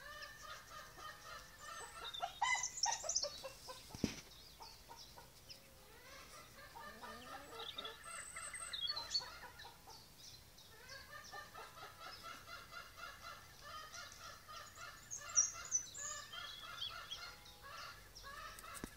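Domestic hens calling over and over in a barn, the drawn-out cackling pre-laying call of hens wanting to lay, with louder, higher bursts about three seconds in and again near the three-quarter mark. A single sharp knock sounds about four seconds in.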